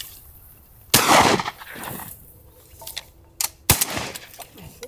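Shotgun shots fired at flying ducks: one loud blast about a second in, then two sharper reports close together about two and a half seconds later.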